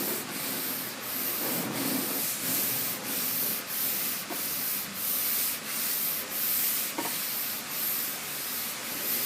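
Long sandpaper-covered Curvecaster sanding board, its knobs unlocked so it floats fully, being pushed back and forth over a primed car deck lid in even strokes, about one and a half a second. This is hand block sanding to show up highs and lows in the panel.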